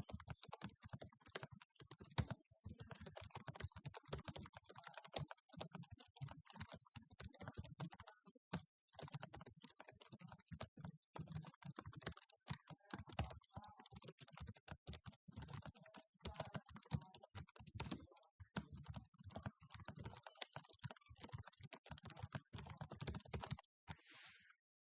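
Fast typing on a computer keyboard: a dense, quick clatter of key presses with brief pauses between bursts, stopping abruptly near the end.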